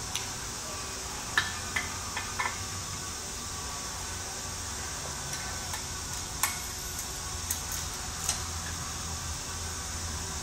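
Scattered light metallic clinks and taps of hand tools against engine parts, a few at a time, over a steady shop hiss and low hum.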